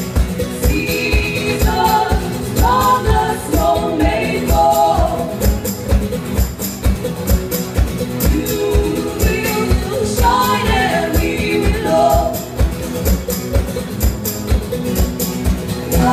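Band music with a steady beat, and a voice singing two phrases, one a second or so in and another past the middle.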